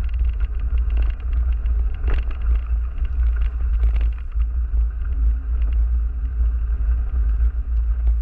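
Bicycle being ridden along a muddy woodland trail: a steady low wind rumble on the camera microphone, with frequent small knocks and rattles from the bike jolting over bumps.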